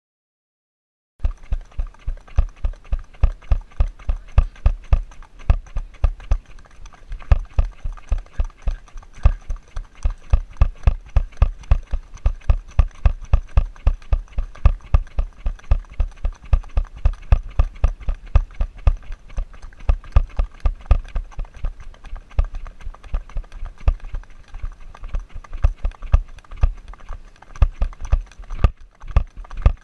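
Even, rapid clicking of a GoPro Hero camera that has worked loose on its helmet mount, knocking at about three a second in time with a ridden horse's strides; it starts about a second in.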